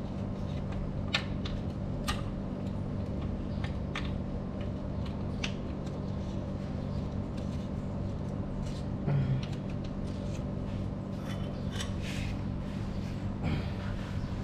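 Scattered sharp metal clicks and ticks as the oil filter cover is fitted and tightened under a Honda Vario scooter, over a steady low hum. The clicks come about once every second or two, then more closely together near the end.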